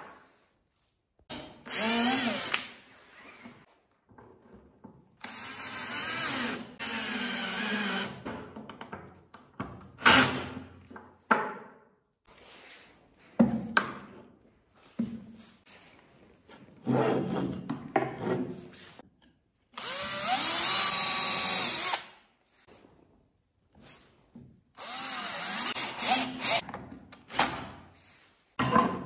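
Power drill driving wood screws into a plywood jig, run in about seven separate bursts of one to three seconds, its motor pitch rising as each starts. Sharp knocks from handling the wood come between the bursts.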